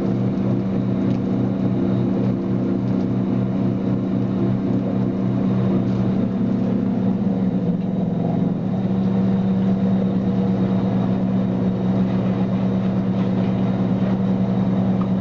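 A fishing boat's engine running steadily, a low hum with a pulsing beat that shifts in pitch briefly between about six and nine seconds in.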